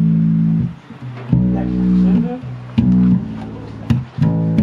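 Electric bass guitar playing a slow line of long, held low notes. Each note is plucked with a sharp attack and then stopped, leaving short gaps between notes.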